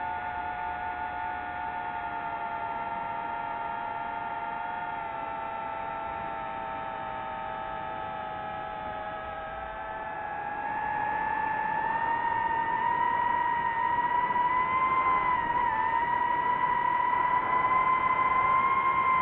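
DJI FPV quadcopter's motors and propellers whining steadily, then rising in pitch and getting louder about ten seconds in as the throttle is pushed up.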